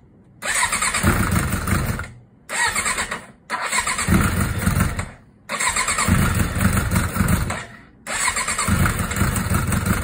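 Suzuki GSX600F's inline-four engine turned over on the electric starter in five cranking bursts of one to two seconds, without catching. The engine is being spun to build oil pressure after fresh oil and a new filter.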